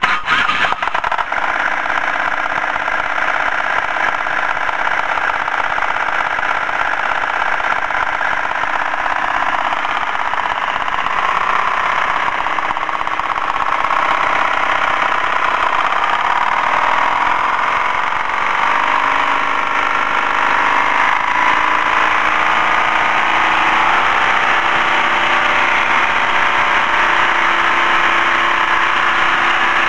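Winsun 870cc air-cooled V-twin diesel engine started on its electric starter, catching within about a second and then running steadily. Its speed and loudness rise a little a few times partway through.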